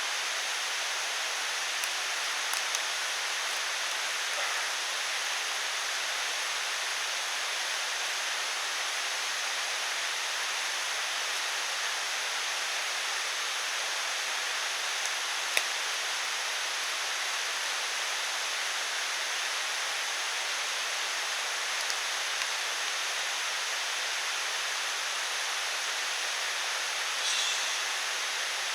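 Steady rushing of water, rain or a mountain stream, with no change in level. A few faint ticks come through it, with one sharper click about halfway.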